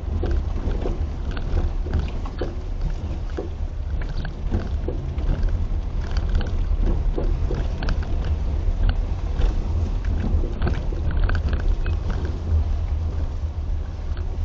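Car driving over an uneven road with steady low road rumble, and many irregular knocks and clunks from the front suspension. The front suspension was newly fitted with struts, springs, control arms and sway-bar links, and is already knocking.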